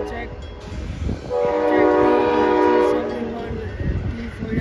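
Amtrak diesel locomotive horn sounding one long blast of about a second and a half, then fading, over the steady rumble and clatter of Superliner passenger cars rolling past on the rails.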